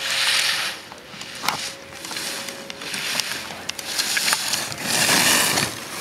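Slalom skis carving turns on a groomed race course: the edges hiss and scrape against the snow in bursts, one per turn. Sharp knocks come in between, as the racer clears the slalom gates.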